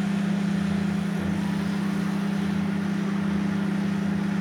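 LG convection microwave oven running: a steady low hum with an even fan whir. It is heating a bag of popcorn that is not yet popping.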